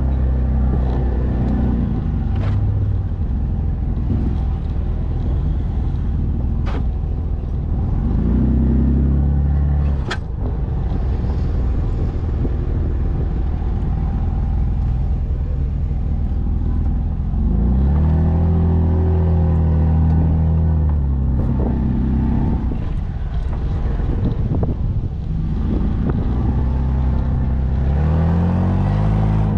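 Jeep Wrangler Unlimited's engine pulling at low speed through soft, rutted dirt, revving up and easing off several times, with a rising rev near the end. A few sharp knocks come through, the loudest about ten seconds in.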